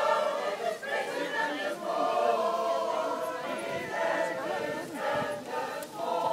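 Mixed choir of men's and women's voices singing unaccompanied, sustained sung phrases with several voices together.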